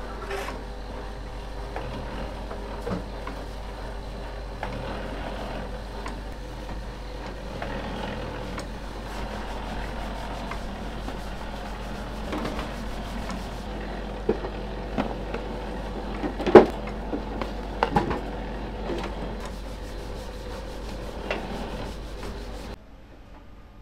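Electric soba noodle-cutting machine running with a steady hum and mechanical rattle, with scattered knocks and clicks. One sharp knock comes about two-thirds of the way through. The machine noise drops away just before the end.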